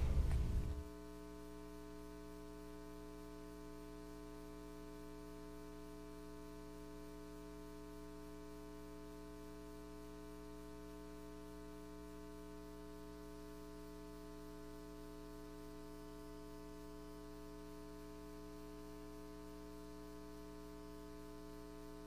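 Steady electrical mains hum, a buzzy tone with many even overtones, left on the audio line once the louder sound drops away in the first second.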